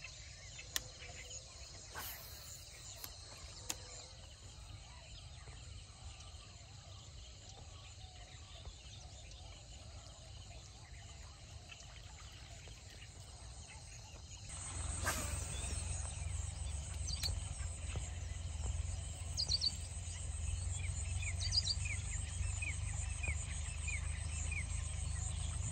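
Birds calling over a faint, even outdoor background. About halfway through it gets louder, with a low steady rumble under short, high, falling chirps that come in small groups.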